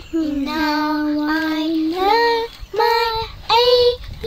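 A young girl singing, holding one long low note for about two seconds, then a few shorter notes that climb higher.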